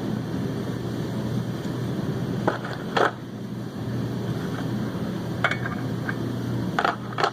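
Impact wrench run gently and steadily, driving a seal installer that presses the rear main seal wear sleeve onto a 7.3 Powerstroke crankshaft. A few sharp metal clinks break in, a pair near the end.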